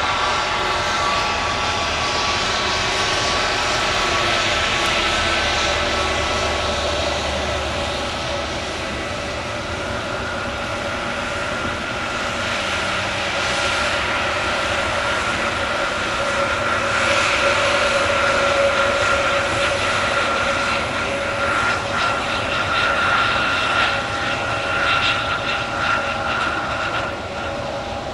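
Airbus A321neo jet engines running as the airliner rolls slowly along the runway: a steady whine with high held tones, swelling somewhat in the second half.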